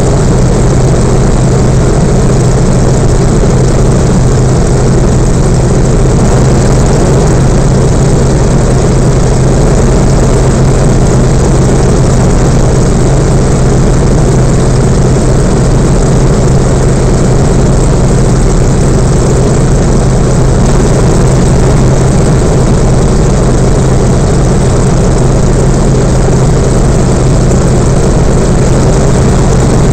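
Yak-52's nine-cylinder Vedeneyev M-14P radial engine and propeller running steadily in flight, heard loud from inside the cockpit, with an even low hum that does not change in pitch or level.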